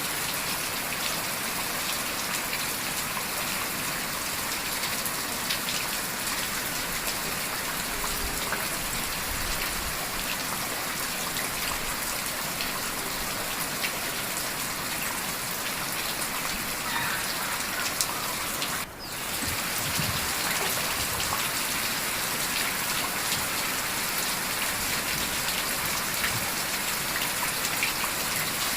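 Heavy rain falling steadily, with a brief dropout about two-thirds of the way through.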